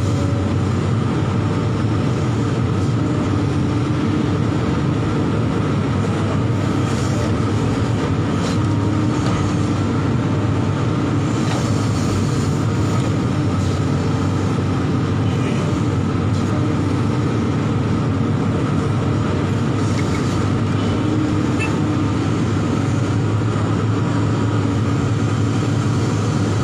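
Hydraulic excavator's diesel engine running with a steady low hum as the machine digs, heard from the operator's cab.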